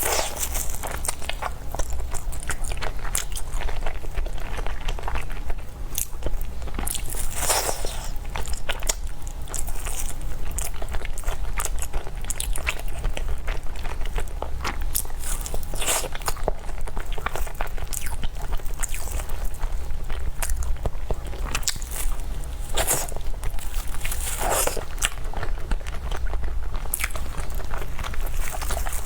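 Close-miked eating: a person biting and chewing food, with many small mouth clicks and a few louder bites.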